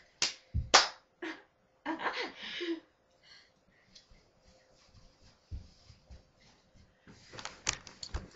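A handful of sharp slaps and knocks in the first second or so, a couple of short scuffs, then a quiet stretch of a few seconds, then a quick run of clicks and taps near the end.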